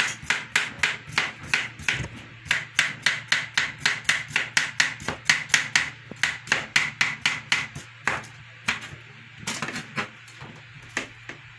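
Kitchen knife rapidly slicing a cucumber on a plastic cutting board, the blade knocking the board at an even three to four cuts a second. After about eight seconds it slows to a few separate chops.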